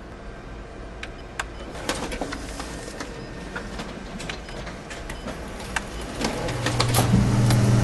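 Office photocopier working: scattered sharp clicks and mechanical clatter, with a louder steady low hum coming in about six seconds in.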